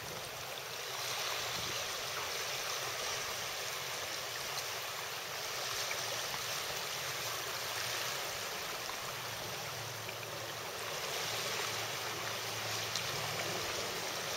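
Steady rushing noise of wind and water, even throughout, with no distinct events.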